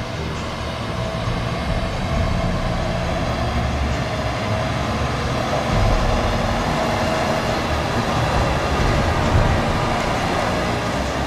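Diesel engine of a large John Deere wheeled tractor running steadily as it drives slowly past close by, with a faint steady whine over the engine rumble. The sound grows a little louder around the middle as the tractor comes nearest.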